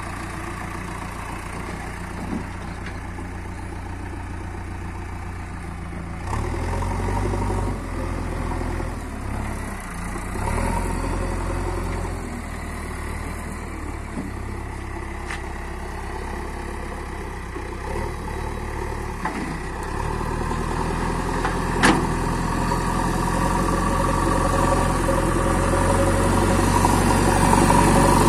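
JCB backhoe loader's diesel engine running steadily, working harder with changes in pitch about a quarter of the way in and rising in loudness over the last third as the front loader bucket pushes soil. A single sharp knock comes a little past the middle.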